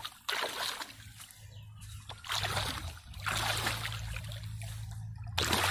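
Shallow muddy water splashing and sloshing in several bursts about a second long as a person wades and churns it, groping in the mud by hand.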